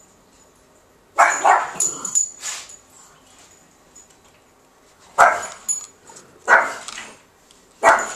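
A dog barking: a quick run of barks about a second in, then three single barks spaced over a second apart later on.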